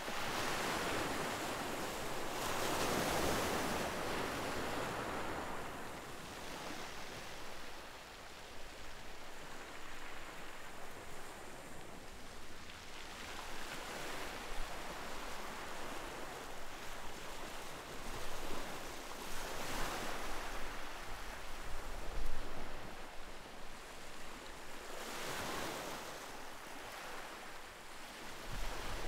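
Ocean surf breaking along the beach: a steady wash of rushing water that swells every several seconds as each wave breaks and dies back, with one brief louder bump about two-thirds of the way through.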